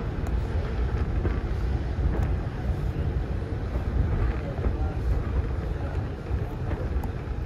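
Steam-hauled passenger train rolling slowly, heard from on board a carriage: a steady low running rumble, with wind buffeting the microphone and a few faint clicks.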